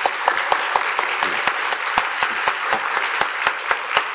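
Audience applauding steadily. One set of louder, sharper claps stands out at about four a second.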